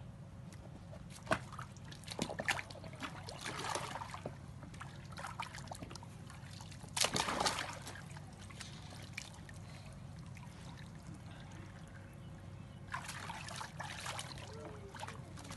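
Water splashing and sloshing in a plastic tub as a young black leopard paws and steps about in it, in irregular bursts, the loudest about seven seconds in and another cluster near the end.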